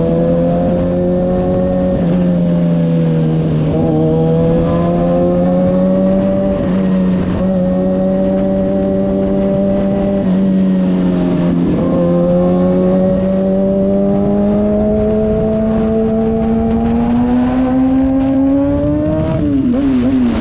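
Kawasaki ZX-6R's inline-four engine running under way, its pitch climbing gradually with brief dips at the gear changes. Near the end it rises for several seconds, then drops sharply just before the end.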